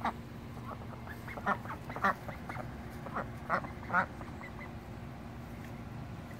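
Domestic duck quacking: a run of about ten short quacks over the first four and a half seconds, the loudest about two and four seconds in, then it stops.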